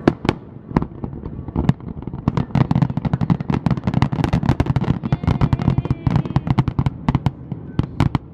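Aerial fireworks shells bursting. A few separate bangs come first, then about five seconds of rapid, dense bangs and crackling, and two sharp reports near the end.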